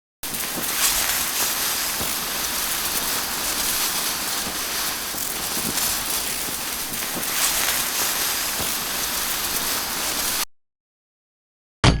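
Star Wars Dioxis gas grenade sound effect: a steady hiss of escaping gas lasting about ten seconds, which cuts off suddenly. A short, sharp sound comes just before the end.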